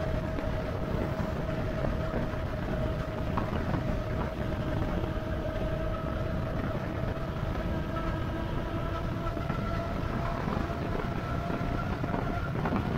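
E-bike cruising on pavement: a constant rush of wind and tyre noise with a thin, steady whine from the bike's drive running through it.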